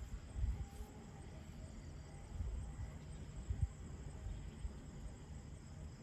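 Storm wind buffeting the microphone: an uneven low rumble with a few stronger gusts.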